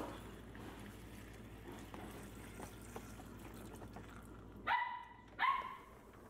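Water poured from a vessel into a pressure cooker of toor dal and bay leaves, a steady splashing stream. Near the end, two short, high yelps about a second apart, like a small dog's.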